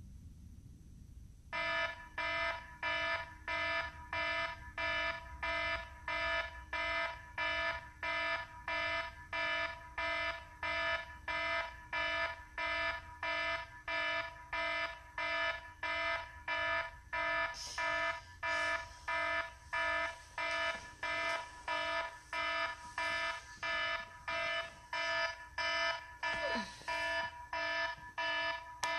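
An electronic alarm starts beeping about a second and a half in, a pitched beep repeating about twice a second without stopping. Brief rustling of movement comes in twice in the second half.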